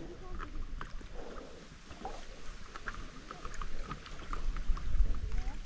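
Small splashes and drips of a paddle working the water beside a stand-up paddleboard, with water lapping at the board. A low wind rumble on the microphone swells about two-thirds of the way through.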